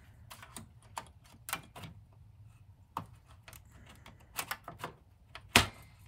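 Clicks and taps of a PCI graphics card and its metal bracket being handled and fitted into a Power Mac G3's expansion slot, with one sharper knock about five and a half seconds in.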